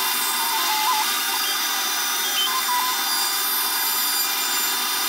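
CNC router spindle running and its end mill cutting a folding-knife handle scale, with a vacuum nozzle sucking up the chips beside the cutter. A steady machine noise with a whine that steps between pitches every so often as the cutter moves.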